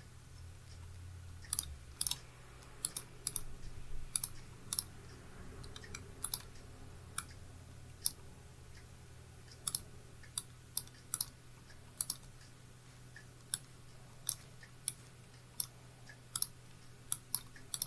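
Computer mouse buttons clicking: irregular, sharp clicks, some in quick pairs, over a faint steady low hum.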